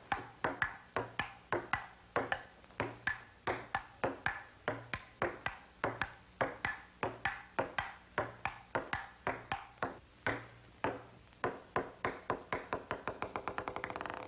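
Cartoon sound effect of a table-tennis rally: the ping-pong ball clicks back and forth about three times a second, speeding up to a fast run of clicks near the end.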